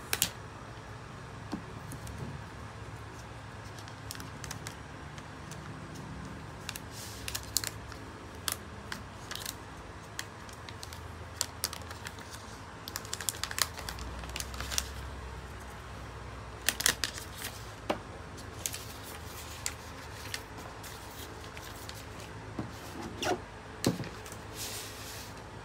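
The paper wrapping sleeve of a new iPad Air being unfolded and pulled off the tablet, with irregular sharp crinkles and clicks of handling over a steady low hum.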